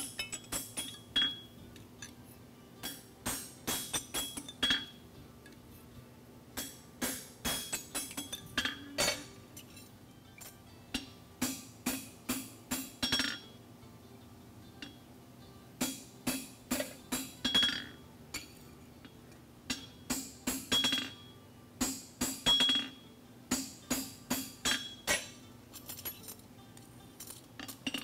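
Farrier's hammer striking a red-hot steel horseshoe on an anvil as the shoe's edge is forged, in quick runs of several blows with short pauses between runs. Some blows ring with a high metallic clink.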